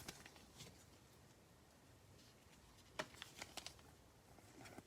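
Near silence with a few faint handling clicks and taps, the sharpest about three seconds in, followed by several smaller ticks.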